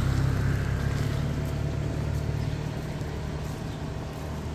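A motor vehicle's engine running close by, growing steadily fainter as it moves off.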